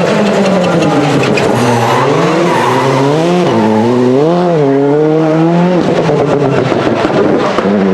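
Rally car's turbocharged four-cylinder engine under hard driving: its pitch climbs and drops several times with quick falls between, as it accelerates, shifts gear and brakes.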